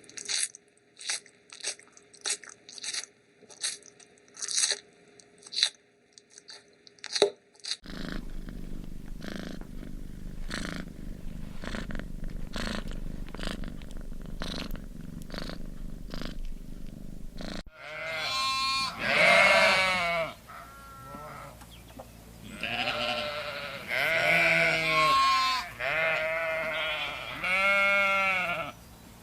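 A sequence of animal sound effects: crisp crunching bites repeated about one and a half times a second, then a cat purring steadily with a rhythmic pulse about every half second, then, about 18 seconds in, a series of wavering bleats.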